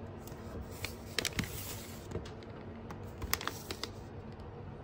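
Paper shopping bag rustling and crinkling as a hand lifts a paper-wrapped gift box out of it, with sharp crackles of stiff paper about a second in and again past three seconds.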